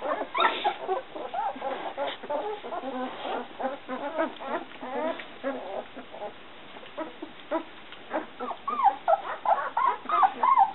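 A litter of young White Swiss Shepherd puppies squeaking and whimpering, many short high calls overlapping, some rising and falling in pitch. The calls grow louder and clearer near the end.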